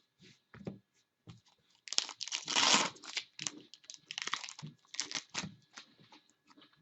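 Trading-card pack wrapper torn open and crinkled by hand: a few small clicks, then a burst of tearing about two seconds in, followed by bouts of crinkling.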